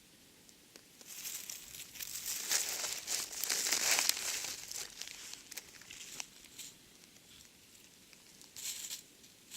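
Dry crinkling and rustling with many small crackles, loudest about three to four seconds in and fading out, then a short burst near the end.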